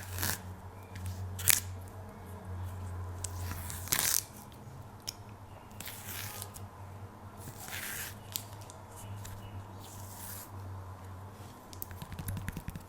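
Banana being peeled close to the microphone: several short ripping tears as the peel strips are pulled down, with sharp clicks and handling noises between them.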